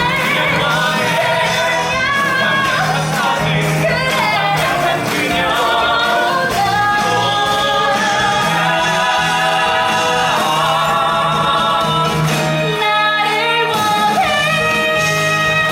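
Musical theatre cast singing together over backing music, several voices at once; in the second half they hold long, sustained notes.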